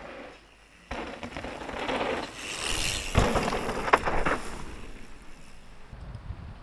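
Mountain bike passing close on a loose dirt trail: knobby tyres crunching and skidding through the dirt, with the rear hub's ratchet clicking and two sharp knocks from the bike in the middle. The sound builds after about a second and fades away again.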